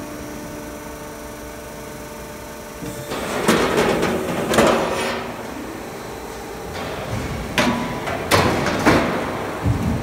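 Steady hum of a roll forming machine line. Then a formed sheet-metal noise-barrier panel scrapes and rattles along the steel roller run-out table for about two seconds. Several sharp metal clanks follow near the end.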